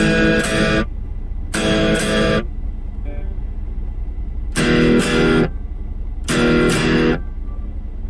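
Stratocaster electric guitar played through a Blackstar ID Core V3 10-watt amp: four short strummed chords, each a quick pair of strokes, with gaps between them. A steady low hum runs underneath.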